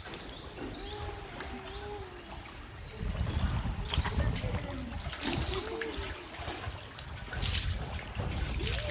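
Swimming-pool water splashing and lapping around a large inflatable pool float as people move in the water, with a couple of sharper splashes near the end.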